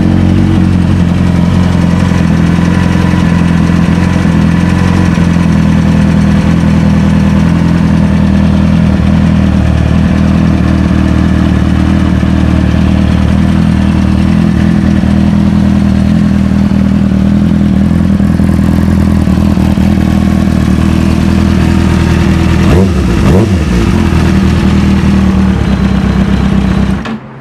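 2004 Kawasaki ZX-6R 636's inline-four engine idling steadily, running well on a newly fitted fuel pump. About 23 seconds in the revs briefly rise and fall back, and near the end the sound cuts off sharply.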